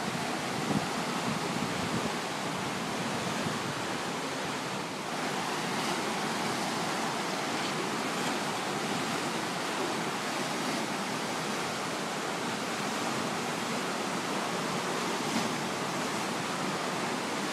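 Fast, flood-swollen river rushing and churning steadily.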